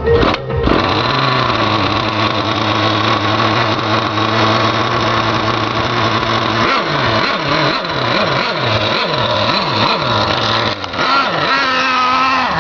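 Simson S50 moped's small two-stroke engine running at a steady speed, then revved up and down several times in the middle before settling back to a steadier run near the end.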